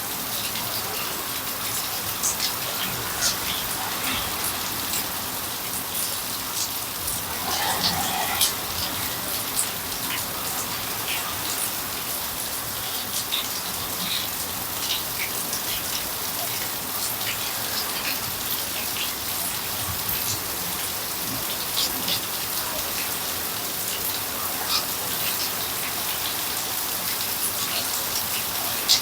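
Heavy rain falling in a steady hiss, with many single drops landing as sharp taps.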